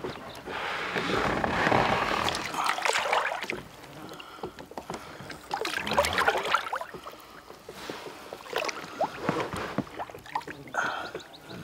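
Water splashing and sloshing against an inflatable boat's side as a large pike is lowered into the water and held there by hand for release. The splashing is busiest in the first few seconds and again about halfway through.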